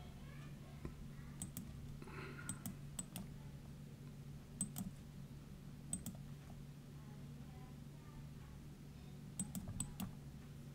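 Computer mouse and keyboard clicking: scattered sharp clicks, several in quick pairs and a cluster of four near the end, over a low steady hum.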